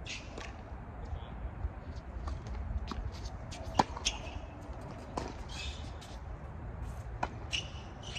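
Tennis ball struck by rackets and bouncing on a hard court during a rally: a handful of sharp pops, the loudest a racket hit close by about four seconds in.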